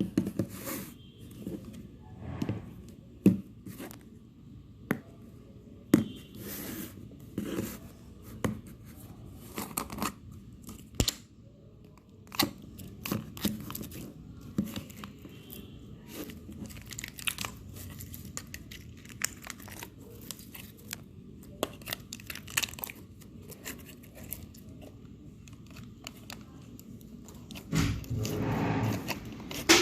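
Hands squeezing and stretching soft slime: irregular squelches and sharp clicking pops, with a longer, louder bout of squishing near the end.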